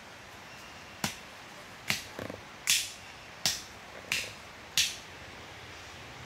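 A series of six sharp knocks or cracks, about one every three quarters of a second, each dying away quickly, over a faint steady hiss.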